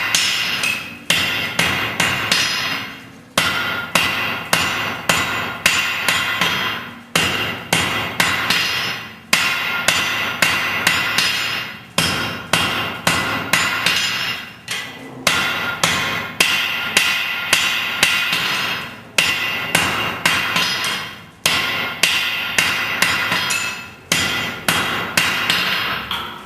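Hammer blows on hot steel over a Hofi anvil, struck in quick runs of several blows a second with short pauses between runs. Each blow leaves a ringing tone.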